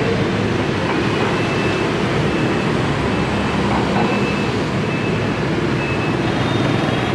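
Steady street traffic noise, with motorbikes and cars going past on a busy road.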